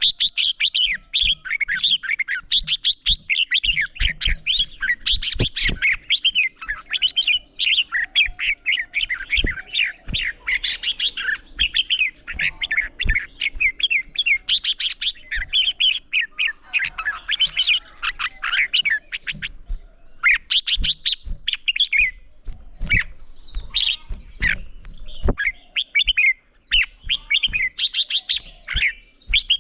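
Red-whiskered bulbuls singing in competitive song: rapid, continuous whistled and warbled phrases that overlap one another, with scattered sharp clicks.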